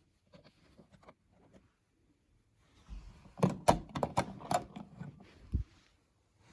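Hand handling of tools and switch parts at a wall switch box: a few faint clicks, then about three seconds in a burst of sharp clicks and knocks lasting a couple of seconds.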